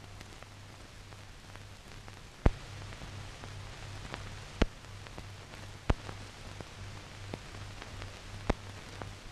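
Old film soundtrack noise: steady hiss and a low hum, broken by a handful of sharp pops and crackles, the loudest about two and a half seconds in.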